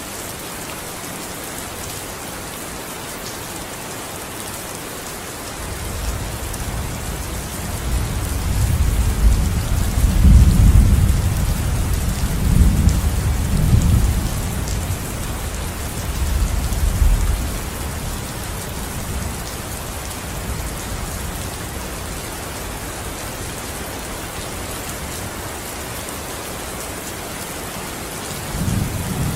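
Steady heavy rain falling, with a long roll of thunder that begins about six seconds in, swells several times and dies away after about twelve seconds; another thunder rumble starts just before the end.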